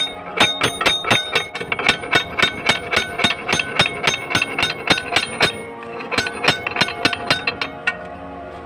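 Steel hammer blows on an engine van's chain sprocket, driving it along the rear axle shaft, about three to four ringing strikes a second. There is a short break a little past halfway, and the blows stop shortly before the end.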